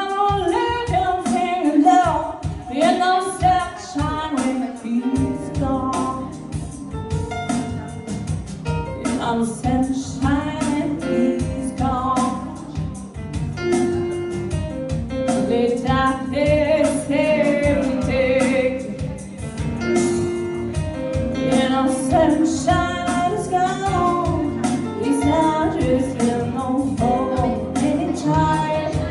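A woman singing a song live into a microphone, accompanied by an electronic keyboard. A low bass line comes in about five seconds in.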